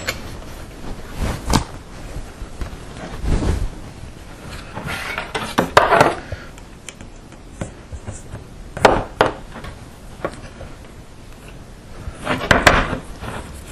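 Irregular rustles and light knocks as a bundle of cables is handled and waxed lacing twine is pushed and pulled through it.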